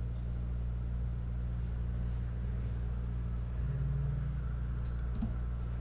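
A steady low hum, unchanging apart from a brief swell about two-thirds through.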